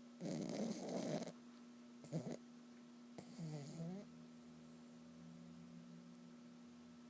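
Sleeping dog snoring three times in about four seconds: a long rasping snore, a short one, then one with a whistling pitch that dips and rises.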